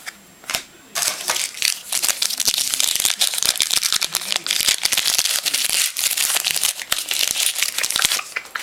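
Crinkling of a foil trading-card pack wrapper as it is torn open and handled: a dense, crackly rustle that starts about a second in and stops shortly before the end.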